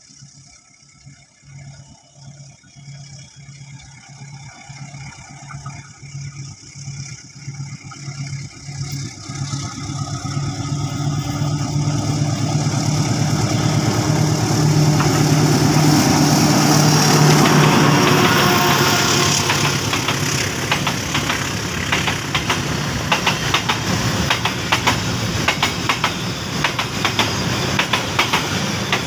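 A CC 206 diesel-electric locomotive hauling a container freight train, its evenly pulsing engine drone growing steadily louder as it approaches and peaking a little past halfway as it passes. The container wagons then follow with a rapid clatter of wheels over the rail joints.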